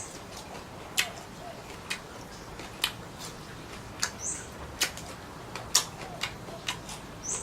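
Someone eating seafood up close to the microphone: irregular sharp wet clicks and smacks about once a second, with two short high squeaks, about four seconds in and near the end.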